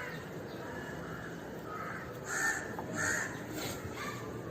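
A crow cawing, with about three short calls in the middle, over steady low background noise.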